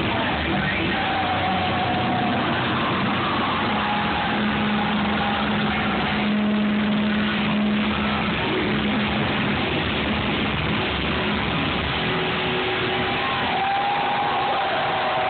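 Hard rock band playing live, a dense, steady wall of distorted guitar and drums with long held notes, heard from within the crowd.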